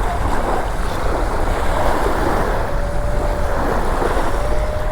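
Wind buffeting the microphone over surf, with a Minelab Equinox 800 metal detector giving a steady mid-pitched target tone from about halfway through that steps slightly up in pitch near the end: an iffy signal over shingle.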